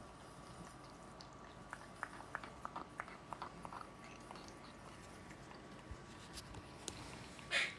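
A parrot chewing, with quiet irregular clicks and crunches. A short, louder harsh rasp comes near the end.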